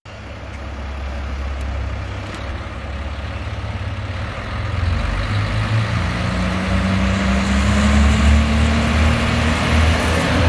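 Kashima Rinkai Railway diesel railcar pulling into the station. Its engine and wheel noise is a low rumble that grows louder as it nears, and a rising tone joins in about halfway through.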